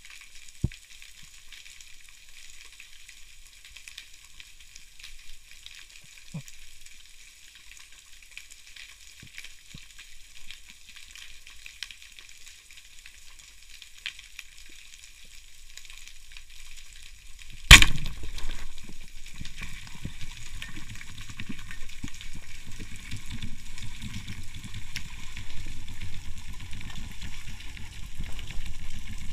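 Underwater, a steady crackling hiss with a few faint clicks. About two-thirds of the way through comes a single loud, sharp crack: a wooden speargun firing its shaft. After it, rougher rushing water noise runs on to the end.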